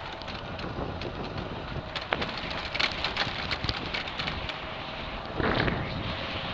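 Super Turbo 800 electric scooter riding across a rough dirt field: wind buffeting the microphone over tyre noise, with many sharp clicks and rattles as it jolts over the bumps. A louder rush of wind comes about five and a half seconds in.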